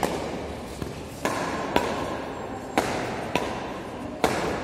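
Badminton rackets striking a shuttlecock in a rally: sharp cracks roughly once a second, echoing in a large indoor hall.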